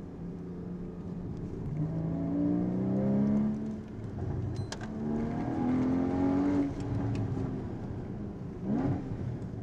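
Porsche Boxster GTS's 3.4-litre flat-six engine accelerating, heard from the open cockpit: the revs climb twice and drop at each upshift, then rise briefly once more near the end.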